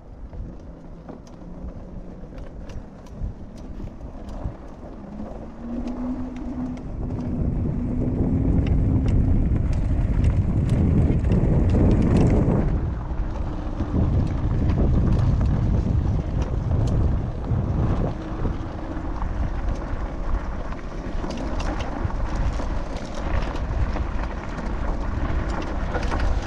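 Riding a Citycoco-type electric scooter: wind buffeting the microphone and tyre rumble, growing much louder about seven seconds in, with scattered knocks from bumps and a faint whine that rises slightly with speed.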